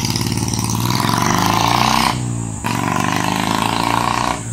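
Royal Enfield Bullet 350 Standard BS6 single-cylinder engine, breathing through a short-bottle aftermarket silencer, accelerating away with rising pitch. It breaks off briefly about two seconds in, as at a gear change, then climbs again.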